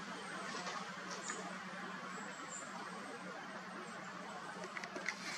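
Steady outdoor background hiss with a low hum under it, and a few faint, short, high chirps. Several sharp clicks come near the end.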